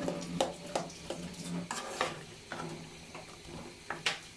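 Spoon stirring and scraping a pan of boiled chickpeas and spices as they fry, in quick irregular strokes.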